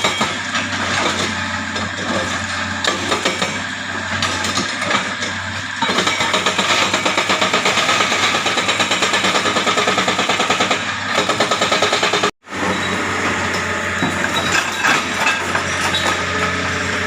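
Hitachi excavator's hydraulic breaker hammering rock in a fast, even beat of about seven blows a second for around five seconds, over the excavator's diesel engine running. The sound cuts out for an instant about twelve seconds in, then the engine runs on with scattered knocks.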